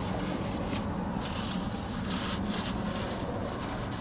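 Soft rustling and rubbing in several short swishes, over a steady low hum inside a car.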